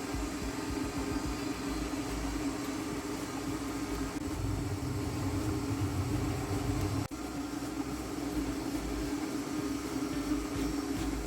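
A small motor running with a steady hum, with a brief break about seven seconds in.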